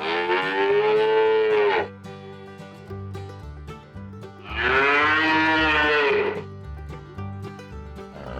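A cow mooing twice, each moo about two seconds long, with its pitch falling away at the end.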